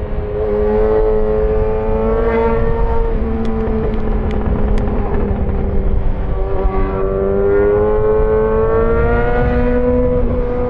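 Yamaha XJ6 S's 600 cc inline-four engine running through an SC-Project aftermarket exhaust while riding. The note holds steady, dips slightly past the middle, then climbs again, over low road and wind rumble, with three faint ticks near the middle.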